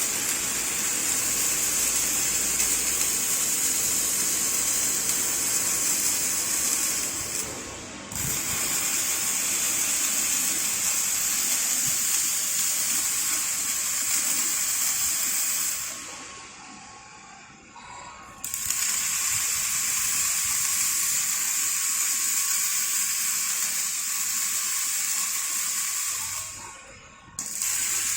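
Automatic scaffold-welding machine's welding arcs hissing steadily. The hiss breaks off briefly about eight seconds in, for a couple of seconds around the middle, and again just before the end, as one weld ends and the next begins.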